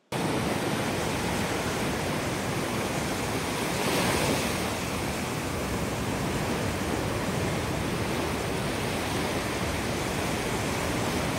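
Ocean surf washing in a steady rush, swelling slightly about four seconds in.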